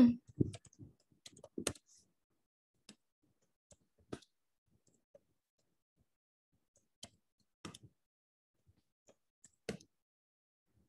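Computer keyboard keys being typed: sparse, irregular clicks, a few at a time with pauses between them. A brief louder noise comes at the very start.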